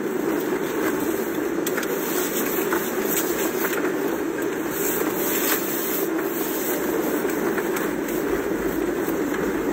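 Steady rumble of road and running noise heard from inside a moving vehicle's cabin, even in level throughout, with a few faint ticks.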